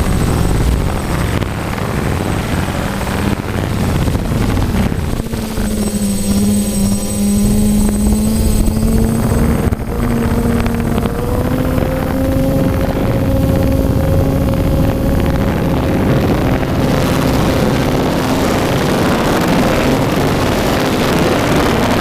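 DJI F550 hexacopter's six electric motors and propellers in flight: a steady, loud buzzing hum whose pitch steps up a little twice, with rushing air noise over it.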